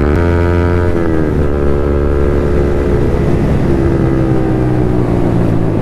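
Yamaha MT-15's single-cylinder engine running under way. The engine note drops about a second in as the throttle eases, then holds and sinks slowly, with rushing air on the microphone.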